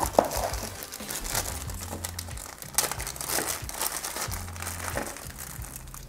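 Clear plastic packaging bags rustling and crinkling as they are handled, with many small crackles, over background music.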